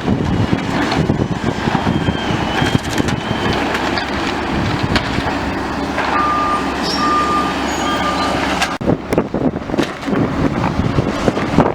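Demolition excavator working on a building: its engine running under continuous crunching and clanking of rubble and metal, with sharp knocks near the end. A reversing alarm beeps three times past the middle.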